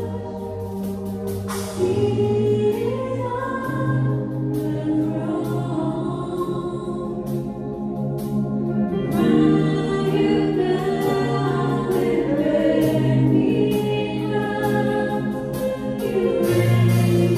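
Choir singing a gospel hymn, with long held notes that move to new chords every second or two.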